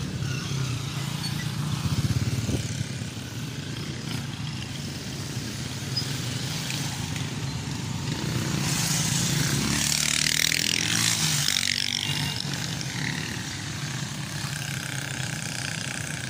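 Motor vehicle traffic on a road: engines running steadily, with a louder vehicle going past about nine to twelve seconds in, its engine pitch falling as it passes.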